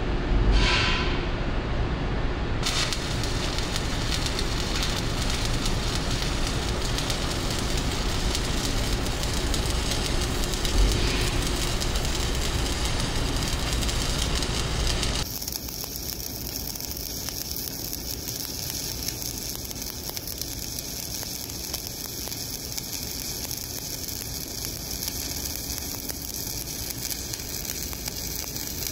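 Shielded metal arc (stick) welding: an E7018 electrode burning at about 135 amps on the root pass of a horizontal groove weld, a steady noisy arc sizzle. The arc noise fills out about three seconds in; about halfway through it drops a little and turns thinner and hissier.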